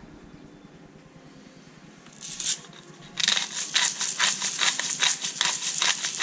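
Hand-twisted pepper mill grinding black peppercorns: one short twist about two seconds in, then steady grinding from about three seconds in, about four gritty strokes a second.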